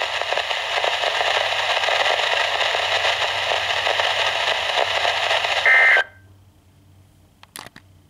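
Midland weather radio receiver playing steady static hiss from the NOAA Weather Radio broadcast. A brief two-tone data burst sounds at about six seconds, then the radio's audio cuts off suddenly, leaving only a low background with a few faint clicks near the end.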